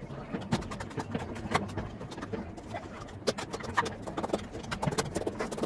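Spoon beating an omelette mixture inside a steel tumbler: irregular light metallic clinks and taps against the tumbler's wall.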